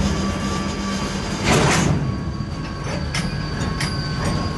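Freight train moving, with a steady low rumble and sharp metallic clanks from the cars. There is a louder clattering burst about a second and a half in.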